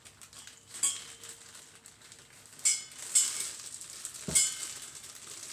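Clear zip-lock plastic bag crinkling as it is handled over a metal cup, being set up as a double-bagged piping bag. A few sharp clinks and taps come about one, three and four seconds in; the one at four seconds is the loudest and has a low knock.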